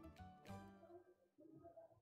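Faint instrumental background music with sustained notes.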